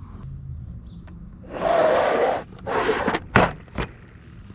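A Craftsman VersaStack tool case being opened: two scraping, rustling handling sounds, then two sharp clicks, like its latches snapping.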